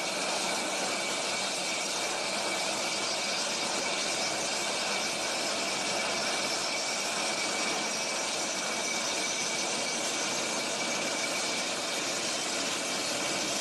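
Boeing 747's jet engine starting up: a steady rushing whine with a high tone over it, and a fainter whine slowly rising in pitch through the middle as the engine spools up.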